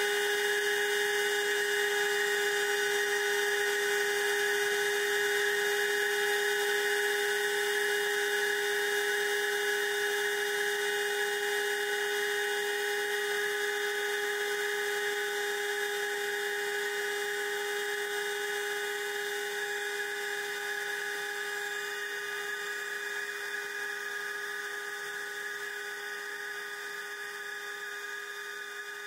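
HHO (oxyhydrogen) torch burning steadily: a high-pitched whistle over a hiss, slowly getting quieter near the end.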